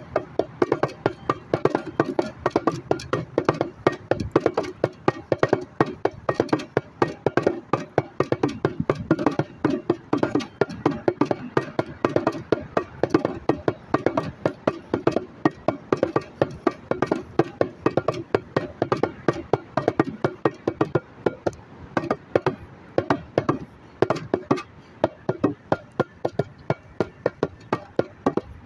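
Bongos played by hand in a fast, unbroken run of sharp strikes.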